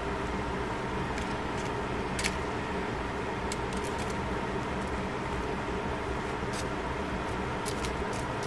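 A few light clicks and taps from chopsticks stirring vegetables in a foil tray, the clearest about two seconds in, over a steady low hum and rumble.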